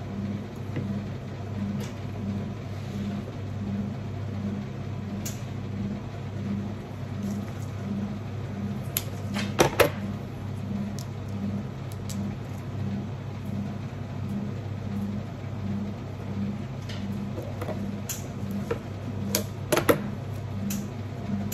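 A steady low machine hum with a regular pulse, a little under two beats a second. Over it come two short clusters of sharp clicks and snaps, about ten seconds in and near the end, from blue-handled scissors and flower stems being handled on the worktable.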